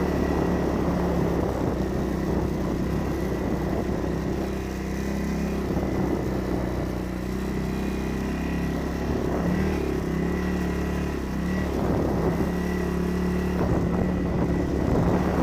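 ATV engine running steadily at low trail speed, its pitch wavering a little as the throttle shifts.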